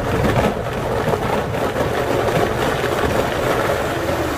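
Countertop blender running steadily, puréeing roasted tomatoes, tomatillos, serrano chiles and garlic with guajillo chile into a salsa; it begins to wind down at the very end.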